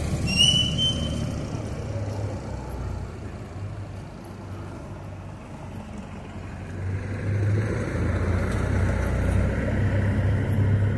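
Street traffic: a low engine rumble that swells from about seven seconds in as a vehicle comes closer. A short, high squeal sounds right at the start.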